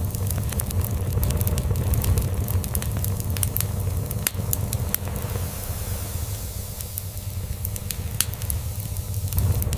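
Log fire crackling, with many sharp pops scattered irregularly over a steady hiss, on top of a continuous low rumble of a cat purring.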